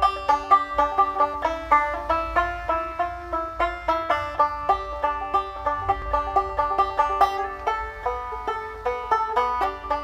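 Solo banjo played in a steady, quick rhythm: a continuous run of bright plucked notes.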